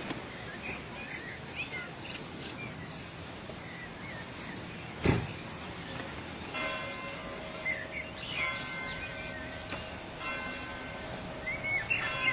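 Bells struck several times from about six and a half seconds in, each stroke's tones ringing on, over birds chirping and outdoor background noise; a single sharp knock sounds about five seconds in.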